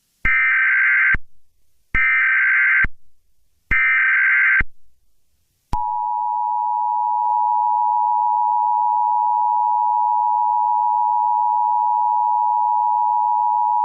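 Emergency Alert System SAME header: three one-second bursts of screeching data tones, then the steady two-tone EAS attention signal for about eight seconds. Together they mark the start of a new emergency alert.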